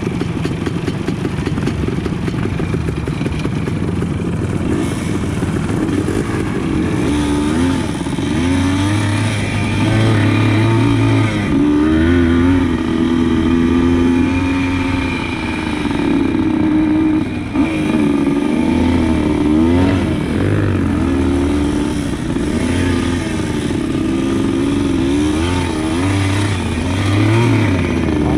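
Suzuki TS100's two-stroke single-cylinder engine running as the dirt bike is ridden, revving up and down again and again with its pitch rising and falling.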